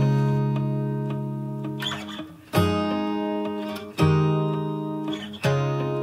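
Background music of acoustic guitar: chords strummed and left to ring and fade, a new chord about every second and a half.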